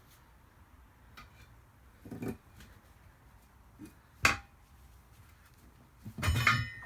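Old spare-tire irons clanking against a wheel rim while prying a tire off it. A dull knock comes about two seconds in and a single loud, sharp metal clank with a brief ring just after four seconds. A ringing metallic clatter follows near the end.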